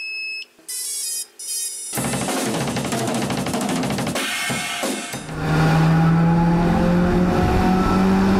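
Intro music sting. Short beeping tones, then fast drumming with cymbals from about two seconds in, settling about five seconds in onto a held low note under a steady chord.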